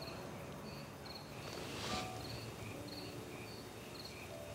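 Crickets chirping in a steady night-time chorus, short chirps repeating about twice a second, with a brief soft rustle about two seconds in.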